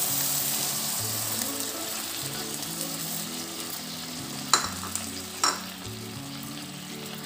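Coconut milk sizzling as it hits hot ghee and roasted rice in a kadhai, loudest at first and dying down gradually. Two sharp clicks come about four and a half and five and a half seconds in.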